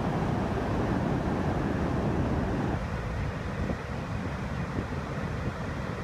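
River water pouring heavily over a stepped waterfall in spate and churning in the pool below: a steady rushing noise that drops a little in level about three seconds in.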